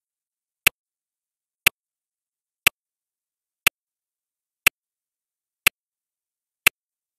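Clock-tick sound effect: one sharp tick each second, seven in all, marking off the seconds of a timer.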